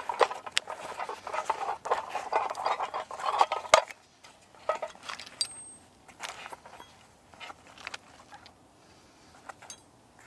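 Leather drawstring pouch rustling and creasing as it is set down on a wooden stump and opened, ending in a sharp knock about four seconds in. Then come sparser clicks and a brief metal clink as a C-shaped steel fire striker and a flint are taken out and laid on the stump.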